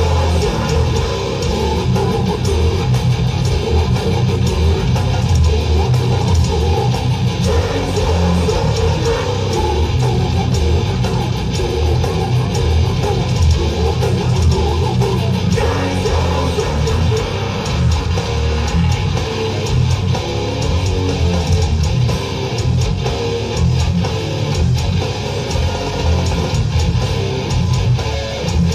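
Death metal band playing loud and without a break: heavily distorted electric guitars and bass over fast, dense drumming, with a vocalist singing into the microphone.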